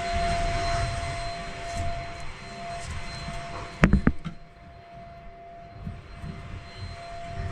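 Wet/dry vacuum running, sucking the leftover water out of a toilet. A few sharp knocks come just before four seconds in, the loudest thing here, after which the sound is quieter.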